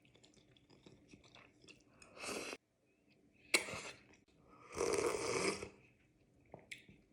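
Close-miked eating sounds of a person eating ramen: soft chewing with small wet mouth clicks. It is broken by a few short, louder noisy bursts, the longest about five seconds in.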